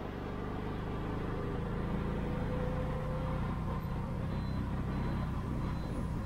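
Tuk-tuk (auto rickshaw) engine running steadily while driving, heard from inside the open cabin as a low hum.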